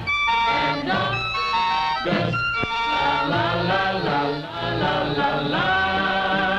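A 1950s pop record: a male vocal group singing together over instrumental backing.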